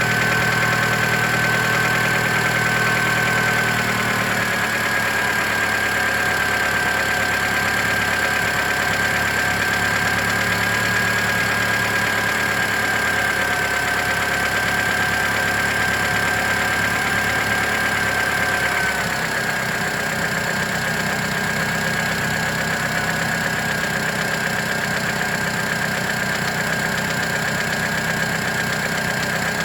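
2008 Mitsubishi Lancer engine idling with a tick that comes once per crankshaft revolution, not with each cylinder's firing, from the belt side of the engine; its cause is unknown, and an exhaust leak was suspected at first. A steady high whine runs along with it, and the sound shifts slightly about four seconds in and again near twenty seconds.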